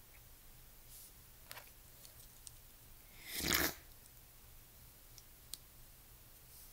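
Faint scattered clicks and taps of small plastic toy pieces being handled and fitted together, with one brief, louder rush of noise about three and a half seconds in.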